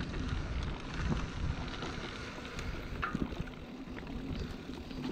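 Wind rumbling on the microphone, with a few faint scattered ticks.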